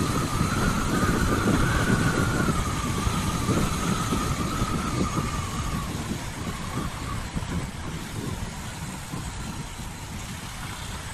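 CPI DTR 150 motorcycle being ridden, heard from the bike: a steady rumble of engine and wind on the microphone, with a thin wavering whine that fades out about six seconds in. The whole sound grows gradually quieter toward the end.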